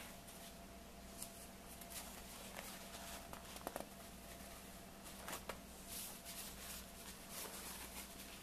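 Paper napkins rustling and crinkling faintly as they are handled and folded flat on a table, with scattered light taps and a small cluster of sharper crackles about three and a half seconds in, over a faint steady hum.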